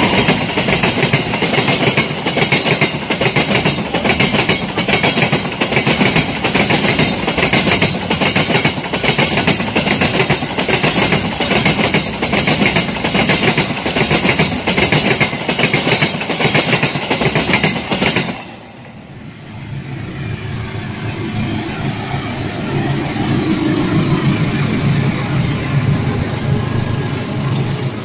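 Train wheels clacking over rail joints in a steady rhythm, about one and a half clacks a second, as the cars pass close by. About two thirds of the way through it cuts off suddenly to the quieter, steady low rumble of a diesel-electric locomotive's engine running.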